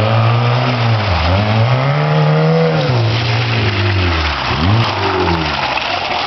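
Small car's petrol engine revving hard while towing a skier on a rope through mud. Its pitch drops sharply and climbs back up about three times as the throttle is lifted and reapplied.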